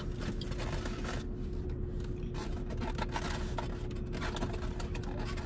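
Rustling and scraping of takeout food containers and a plastic fork being handled, with small clicks, over a steady low hum inside the car.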